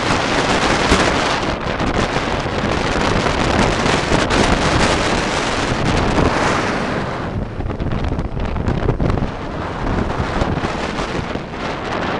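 Wind buffeting the camera microphone on a moving motorcycle. It is loud and rushing, starts abruptly, and eases slightly partway through.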